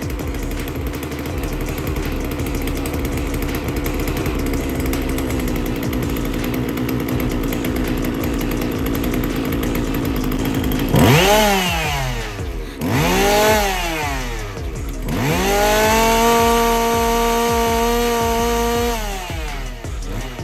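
Two-stroke chainsaw idling steadily, then revved hard three times from about halfway through. The first two revs are short; the last is held for a few seconds before falling back to idle. This is a test run after the saw was adjusted.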